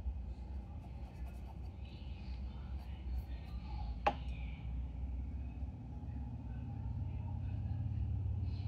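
Steady low rumble of room background noise, with a single sharp click about four seconds in.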